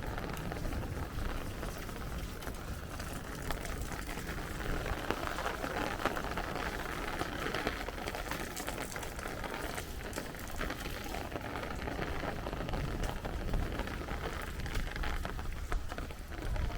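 Steady rain falling and spattering on hard surfaces, with a low rumble dying away in the first second.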